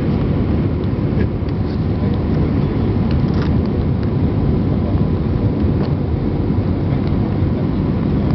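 Steady cabin noise inside an Airbus A319 airliner on its landing approach: an even, low rumble of the engines and the air rushing past the fuselage.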